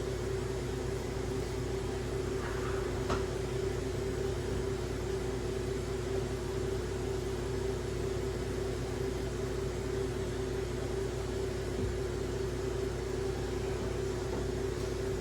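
Steady mechanical hum with a constant tone, unchanging throughout, with a faint click about three seconds in.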